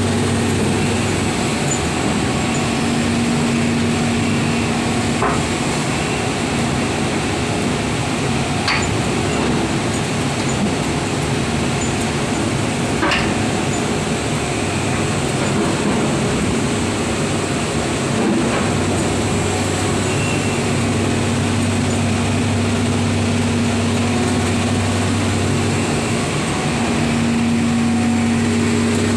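Liebherr LB 36 rotary piling rig's diesel engine running steadily with a constant low hum, with four sharp knocks from the rig's drilling gear spread through it.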